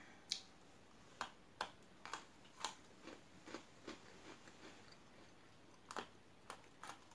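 Two Pocky biscuit sticks bitten off with a crisp snap, then eaten in a string of crunchy bites and chewing, about one crunch every half second, thinning out midway and picking up again near the end.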